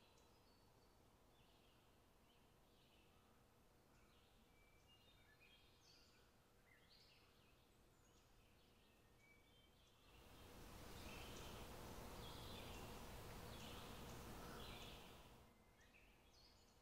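Faint small birds chirping, short scattered calls throughout. Partway through, a steady rushing noise rises for about five seconds and then fades away.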